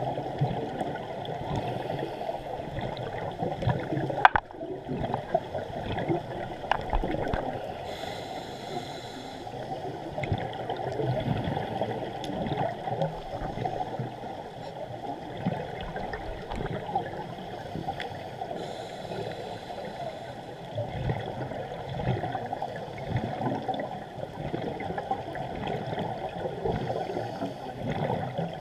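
Underwater sound through a GoPro housing: a steady muffled water rush, broken a few times, several seconds apart, by bubbling bursts of a scuba regulator exhausting. A single sharp click about four seconds in.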